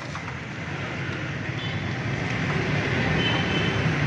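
Steady low rumble of street traffic and urban background noise, with a faint thin high tone about three seconds in.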